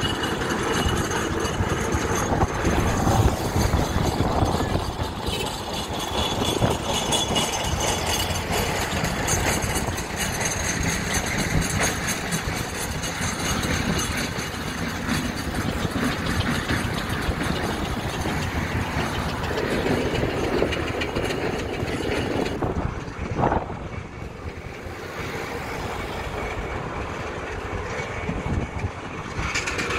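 Steam road engine running on the road, with a continuous mechanical clatter and hiss. It grows quieter and duller about three-quarters of the way through.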